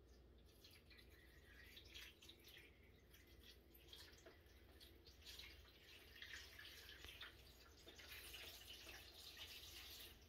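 Faint trickling and dripping of water from a plastic watering can onto potting soil in a seed-cell tray, watering newly sown seeds in from the top. It grows busier in the second half.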